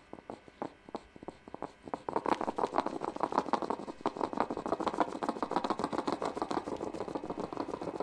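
Hedgehog sniffing and snuffling as it forages, in short huffs. They come a few at a time at first, then turn into a fast, steady run of sniffs about two seconds in.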